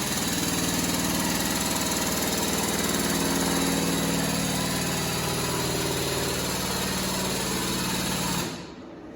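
Frame-straightening machine's hydraulic pump running steadily under load while it pulls a truck frame rail back into place. It cuts off abruptly near the end.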